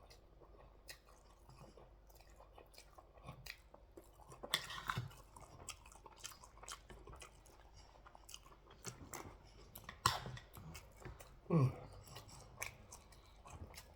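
Close-miked chewing of jollof rice and turkey, with many small wet mouth clicks and smacks. Louder bites come about 4.5 and 10 seconds in, and a short downward-gliding sound about 11.5 seconds in.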